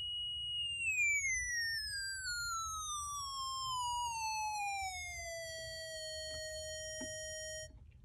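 No-input mixer feedback: a horrible high-pitched whistling tone that holds for about a second, then glides steadily down over about four seconds and settles into a lower steady tone before cutting off just before the end, as a knob on the mixer is turned. A couple of faint clicks come near the end.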